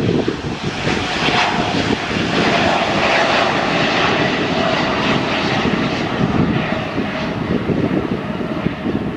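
Boeing 787 Dreamliner's twin Rolls-Royce Trent 1000 turbofans at take-off thrust as the jet climbs away: a steady, loud rushing jet noise with a faint whine that slowly falls in pitch.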